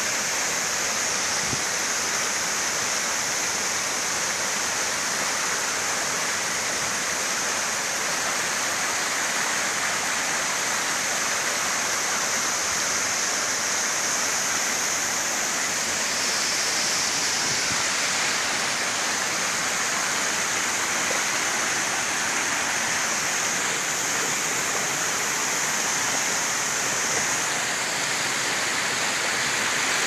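Waterfall pouring into a rocky plunge pool, with the stream running over stones below: a steady, unbroken rush of falling water.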